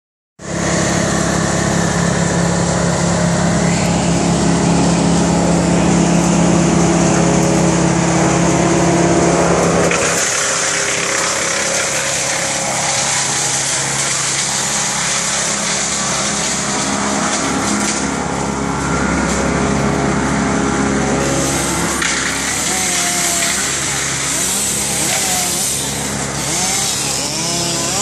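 An engine running steadily for about the first ten seconds, then a chainsaw running, revving up and down several times near the end.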